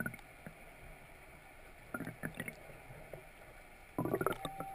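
Underwater bubbling and crackling clicks picked up by a submerged camera. There are three short bursts: one at the start, one about two seconds in and the loudest near the end, over a faint steady hiss.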